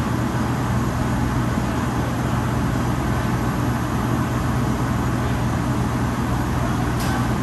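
Steady machinery hum of a commercial kitchen's ventilation and cooling equipment: an even rushing noise with a constant low drone underneath, unchanging throughout.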